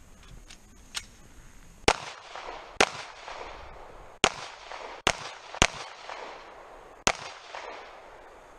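Six handgun shots at an uneven pace, each a sharp crack with a short echo, and a much fainter pop about a second in.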